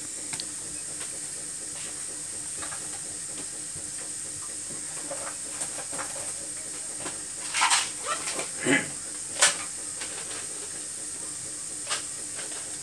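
Stainless pot of chicken broth boiling hard on a gas burner: a steady hiss of steam and bubbling, with a few short louder pops and clicks between about seven and ten seconds in and one more near the end.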